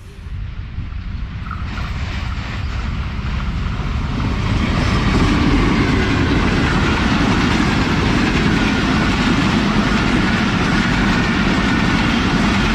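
Pakistan Railways express train passing at close range at about 98 km/h, mostly its passenger coaches: a loud, steady rolling noise of wheels on the rails that builds over the first few seconds.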